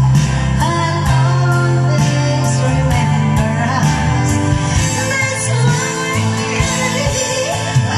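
A woman singing karaoke into a microphone over a backing track with a steady beat.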